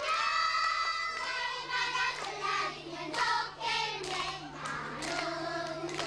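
A group of children singing a song together, with a few hand claps.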